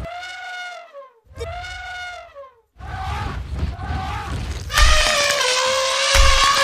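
Elephant trumpeting: a series of short calls that rise and fall in pitch, then a louder, long, blaring trumpet from about five seconds in.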